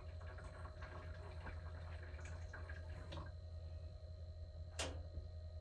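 Light clicks and taps as the knobs of a tankless water heater are turned to shut it off, with one sharper click near the end. A steady low hum runs underneath.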